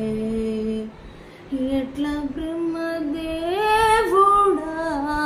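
A woman singing a Telugu song unaccompanied: she holds a long note, breaks off briefly about a second in, then comes back in, rising in a short run near four seconds and settling on another long held note.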